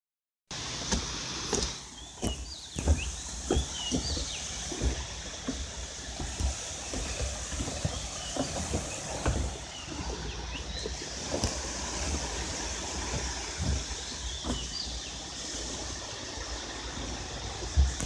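Sea water washing and lapping at the shore, with frequent short splashes and knocks over a steady wash and a low rumble. A few faint high chirps come through now and then.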